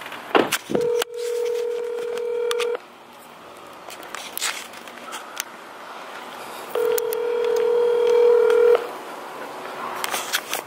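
Telephone ringback tone heard through a phone's speaker: a steady ring about two seconds long, about four seconds of silence, then a second identical ring, the sign of an outgoing call still waiting to be answered. Light handling knocks and clicks sound around the rings.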